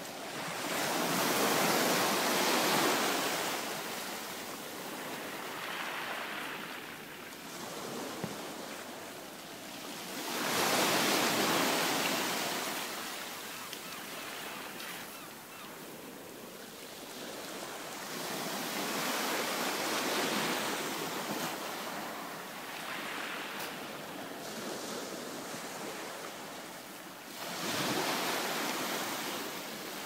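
Small waves breaking and washing up a shingle beach: a steady hiss of surf over pebbles that swells into a louder surge about every eight seconds, four times.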